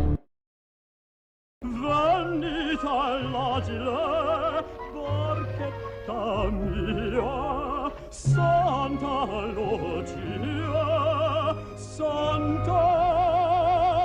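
Silence for about a second and a half, then an operatic voice singing with wide vibrato over orchestral accompaniment.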